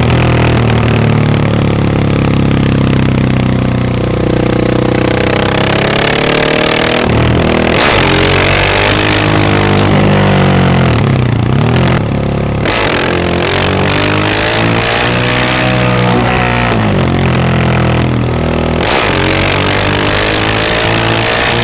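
Stage-2 KTM 690 SMC R single-cylinder four-stroke engine under way, revving up and dropping back again several times as the throttle is opened and closed. It is loud throughout.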